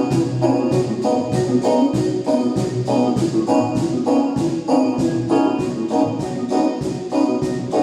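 Band music: keyboard chords with an organ-like sound over a steady drum beat.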